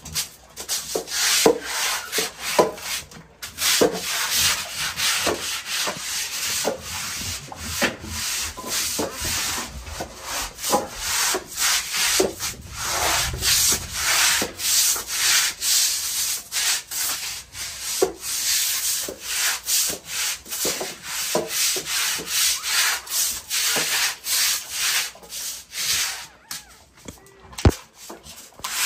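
Stiff-bristled push broom scrubbing wet, soapy concrete, in quick repeated strokes about two a second, with a short lull and a single click near the end.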